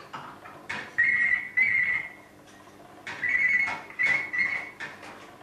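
Female eclectus parrot imitating a ringing telephone: a high warbling trill in two short back-to-back rings, then after a pause another run of two or three rings.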